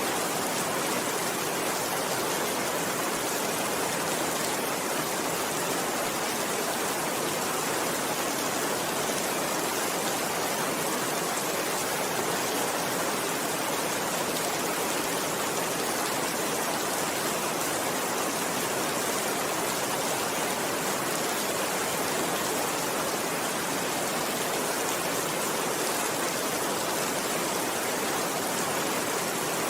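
Steady rainfall: an even, unbroken hiss with no thunderclaps.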